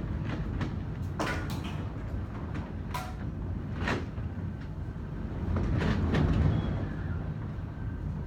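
A steady low rumble with about five sharp knocks or clacks scattered through it.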